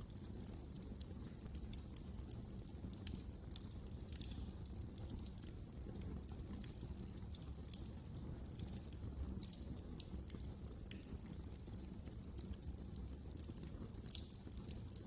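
Wood fire crackling: irregular small pops and snaps over a steady low rumble.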